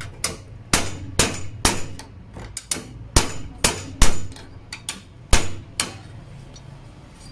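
Hammer blows on a flat steel bar clamped in a bench vise, bending it over: sharp metal-on-metal strikes at about two a second, stopping about six seconds in.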